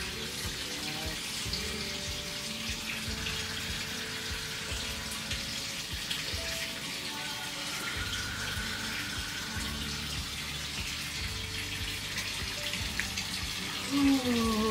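Water running steadily from a tap, an even hiss, with faint music underneath. Near the end comes a short, louder tone that falls in pitch.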